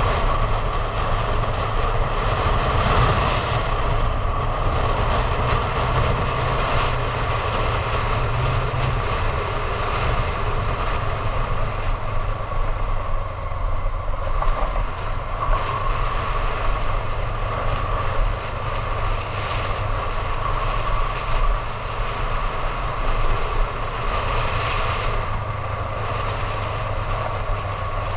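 A motorcycle engine running steadily while riding along, mixed with wind rushing past the camera's microphone.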